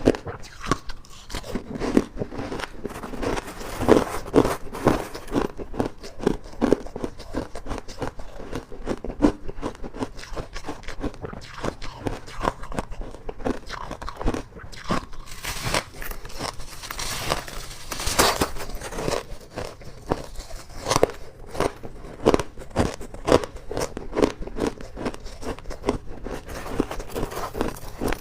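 Ice being bitten and chewed close to the microphone: a continuous, irregular run of sharp crunches.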